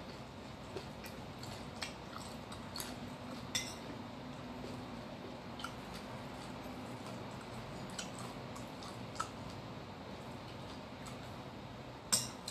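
A person eating with fingers and a metal spoon from a ceramic bowl: soft chewing and scattered light clicks, with a short clatter near the end, over a steady low hum.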